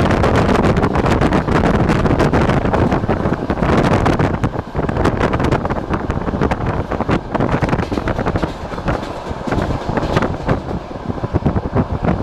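Passenger train running along the track, heard from a carriage window: a steady rumble of wheels on rails with wind buffeting the microphone, broken by many short irregular knocks and clicks.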